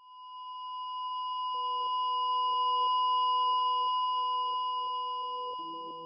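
Ambient electronic music: a steady high pure tone swells in, joined after about a second and a half by a soft, regularly pulsing lower note pattern, with more notes entering near the end.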